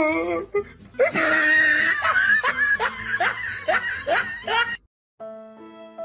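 A person laughing hard in rapid repeated bursts, starting about a second in, then cutting off; soft music with held notes begins near the end.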